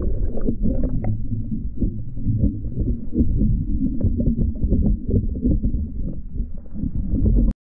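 Muffled underwater rumble and swish of water moving around a swimmer, as picked up by a camera held underwater, with many small crackles in it. It cuts off suddenly near the end.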